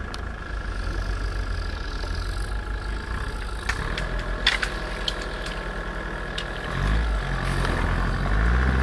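UAZ Patriot engine idling, then revving up and getting louder about seven seconds in as the tow strap goes taut to pull a stuck Patriot out of deep snow. A few sharp clicks come around the middle.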